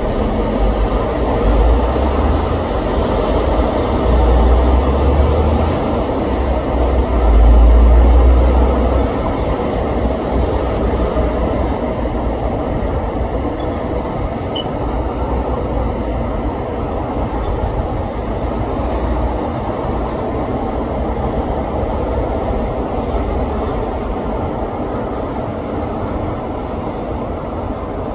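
A steady, loud rumbling noise, heaviest in the first nine seconds with a few deep surges, then slowly fading.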